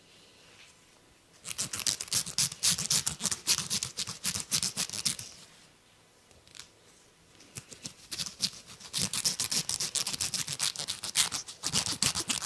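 Hair and scalp being scratched in two bouts of rapid, crisp strokes, several a second, with a pause of about two seconds between them.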